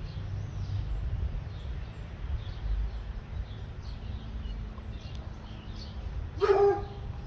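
A young puppy gives one short, loud bark near the end, over a steady low rumble of wind on the microphone and faint birdsong.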